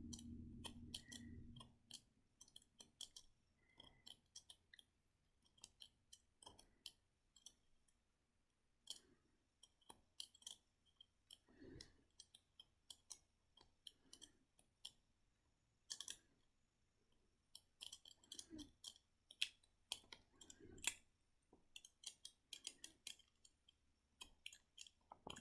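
Faint, irregular clicks and snips of a metal cuticle cutter nipping and peeling the papery skin off an avocado seed.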